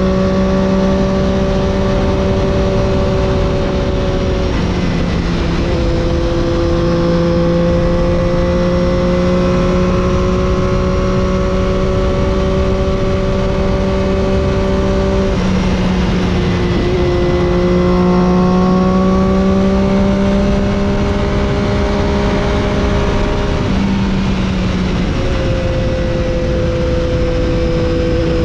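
Triumph Daytona 675's inline three-cylinder engine with Arrow exhaust, heard onboard while riding at fairly steady revs. The note breaks and resettles briefly three times, over a constant rush of wind and road noise.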